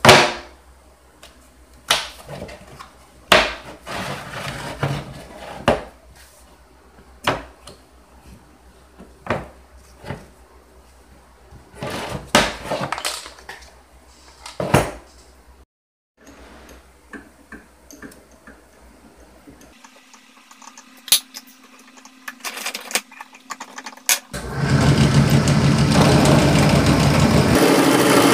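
A string of sharp clicks and knocks as a yellow plastic case is handled on a workbench. About 24 seconds in, a benchtop drill press starts running loudly and steadily, its bit drilling into the flattened head of a ribbed steel (rebar) mace.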